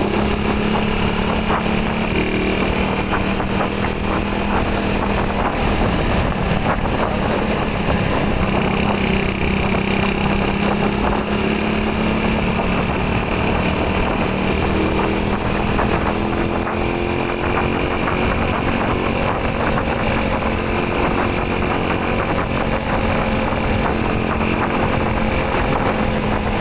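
Motorcycle engine running while riding in third gear, its pitch slowly rising and falling with speed, over steady wind and road noise.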